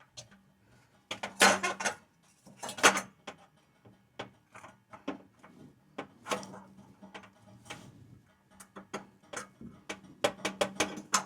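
Sheet-metal draft hood being set onto the top of a gas water heater: metal clanks and scrapes, the two loudest about a second and a half and three seconds in, then a run of lighter clicks and rattles as it is shifted to line up its holes.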